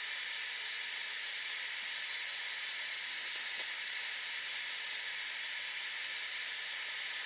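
Steady hiss of a gas-fired forge burner, running evenly without change.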